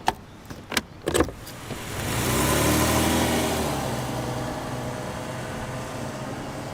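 A few sharp clicks, then a car engine and road noise swell up as the car moves off, loudest about three seconds in, before settling to a steady run.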